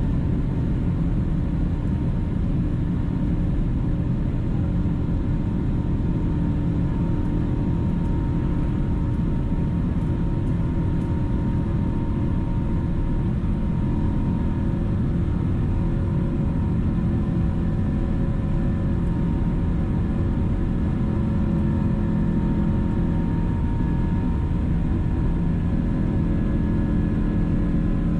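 Cabin sound of a Boeing 777-200 airliner, heard inside the cabin at a window seat: a steady, dense rumble from its twin turbofan engines with a few steady whining tones over it, holding an even level.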